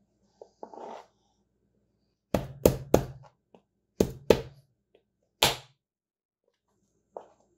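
Kitchen knife chopping an onion on a cutting board: six sharp knocks of the blade hitting the board, three in quick succession, then two, then one. A soft rustle of the onion being handled comes about a second in.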